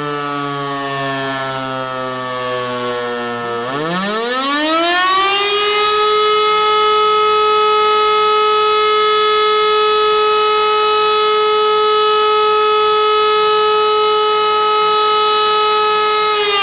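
E57 electromechanical civil-defence siren at close range. It is winding down to a low growl, then spins back up in a rising howl over about two seconds and holds a loud, steady tone. It starts to wind down again at the very end.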